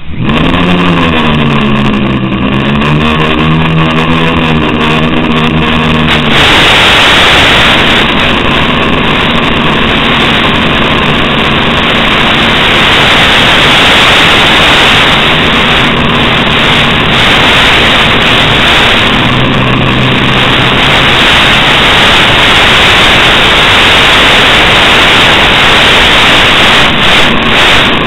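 A small FPV quadcopter's electric motors and propellers, heard in the goggles' lo-fi recording. For about the first six seconds the pitch sweeps up and down with the throttle, then it settles into a loud, rushing buzz in flight.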